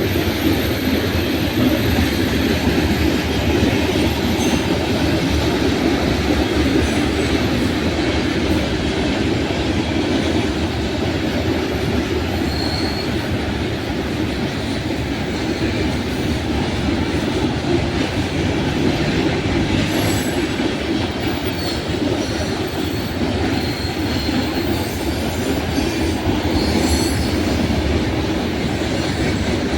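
Freight train wagons rolling steadily past on the rails, a continuous clatter of steel wheels on track with a few faint brief wheel squeals.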